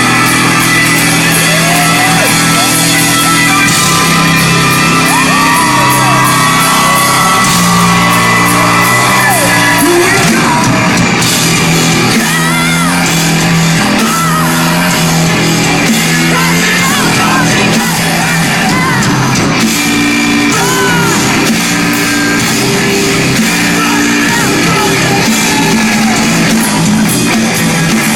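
Live rock band playing loudly in a large hall, with distorted guitars, bass, drums and shouted, sung vocals.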